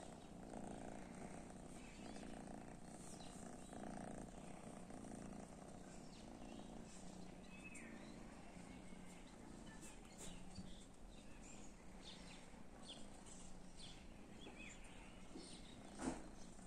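Tabby cat purring softly while scratched under the chin, strongest in the first few seconds, then fainter. A sharp click comes near the end.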